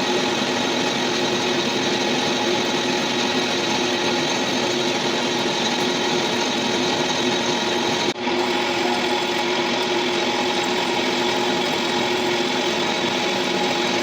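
Metalworking lathe running steadily while machining a cast belt pulley, a continuous machine hum with a steady tone and cutting hiss. The sound dips for an instant about eight seconds in, then carries on unchanged.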